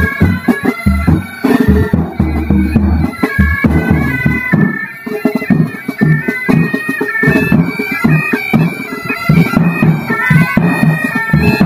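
Pipe band playing: bagpipes sound a stepping melody over their steady drones, with the band's drums beating time underneath.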